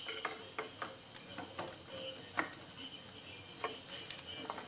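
Scattered light metallic clicks and taps as hands work the broken fuel filter bracket loose on the tractor's engine.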